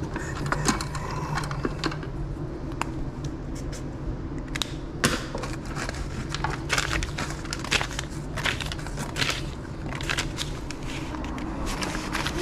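Paper banknotes rustling and crackling as cash is handled in a wooden drawer and counted by hand, with scattered sharp clicks. A steady low hum runs underneath.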